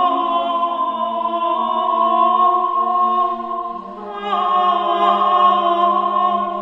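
Several voices holding long, steady chant-like notes together. The voices step down to a lower pitch and briefly fade about halfway through, then come back in and hold again.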